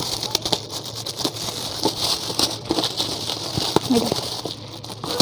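Black plastic bag crinkling and rustling as it is cut open with scissors, with many small irregular clicks.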